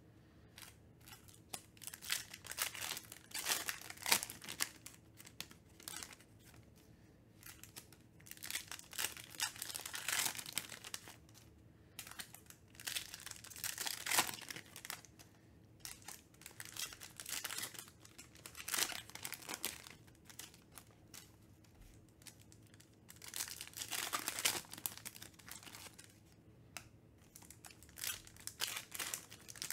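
Foil trading-card pack wrappers crinkling and tearing open in the hands, in repeated bursts every few seconds with quieter gaps between as packs are opened one after another.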